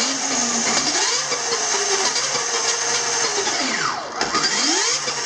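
Victory Empulse TT electric motorcycle's motor and drivetrain whining as it spins the rear wheel off the ground on a rear stand. The pitch rises with the throttle, holds, then drops sharply about four seconds in and climbs again.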